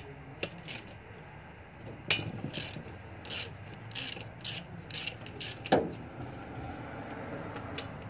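Hand ratchet wrench clicking in short bursts, one swing after another, as bolts are backed out of a mower engine, with two sharper knocks of metal about two seconds in and near six seconds.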